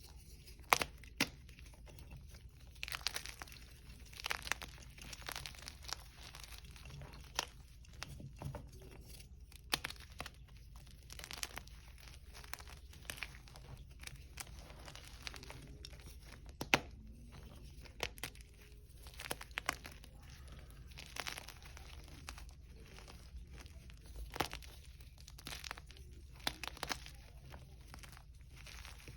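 Hard gym chalk being crushed, crunching and crackling in irregular bursts with a few sharp snaps, over a faint steady low hum.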